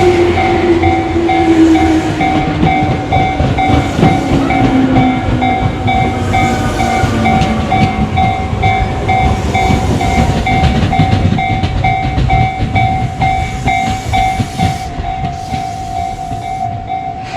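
Japanese level-crossing warning bell ringing in a rapid, steady ding-ding-ding while an electric train passes through the crossing. The train's wheels rumble and clatter over the rails, and its motor whine falls in pitch over the first few seconds as it goes by. The train noise fades near the end while the bell keeps ringing.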